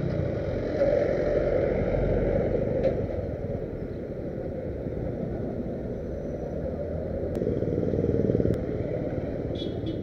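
Motor vehicle running on a road, a steady rumble of engine and road noise that swells and eases a little, with a few faint clicks.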